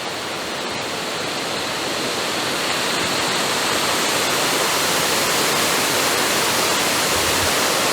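Waterfall's steady rush of falling water, a dense even noise that grows a little louder over the first few seconds and then holds.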